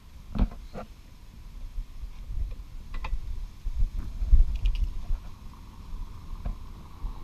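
Scooter rear wheel being slid onto its hub studs: a few sharp metallic knocks and clunks over a low rumble of handling noise, loudest just past the middle.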